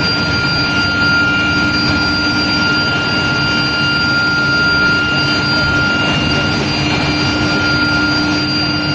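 Induction heating furnace for metal bars running with a steady, loud industrial hum and several high, steady whining tones over dense machinery noise.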